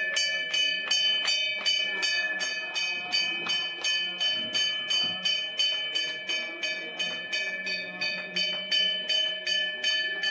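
Temple bell rung steadily, struck about three times a second, each stroke's ring carrying on into the next at a constant pitch.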